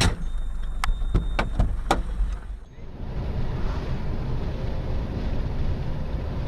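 Steady low rumble of tyres and engine heard from inside a moving car on a highway. In the first two seconds there are several sharp knocks over the rumble, and a cut comes partway through.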